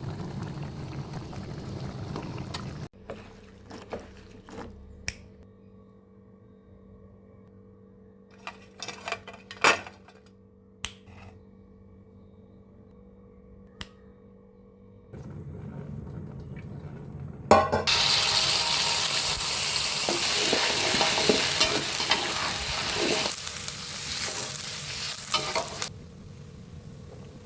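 Kitchen cooking sounds. First come scattered clicks and taps of utensils. About two-thirds of the way through, a loud sizzle of food frying in hot oil starts suddenly, runs for about eight seconds, then drops back.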